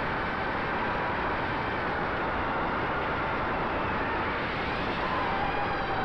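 Electric motors and propellers of a small drone flying low, a steady whine of several tones over rushing wind noise, the pitch rising slightly about five seconds in.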